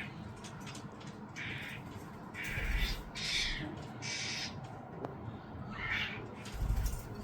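Starling fledgling giving harsh, rasping begging screeches, about five calls of half a second each, the sign of a young bird asking to be fed. Two low rumbles come in, about three seconds in and near the end.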